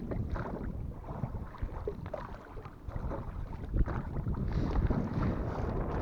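Strong wind buffeting the microphone in an uneven low rumble, with water splashing and small knocks from a small boat on the water.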